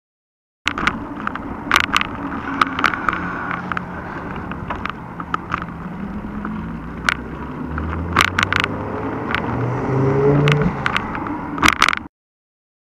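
Mountain bike riding on a paved road, heard through a handlebar-mounted action camera: a steady rumble of tyres and vibration with frequent sharp clicks and knocks from the shaking mount. A car engine rises in pitch and grows louder in the second half as the car passes. The sound starts abruptly about a second in and cuts off just after twelve seconds.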